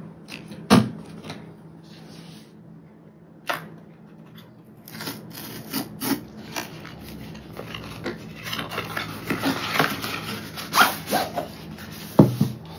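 GoPro Hero 10 retail box being opened by hand: the packaging rubs and scrapes, with scattered taps and clicks. The rubbing is busiest over the second half.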